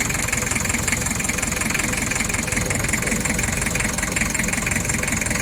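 Mazda Bongo's diesel engine idling steadily just after being started.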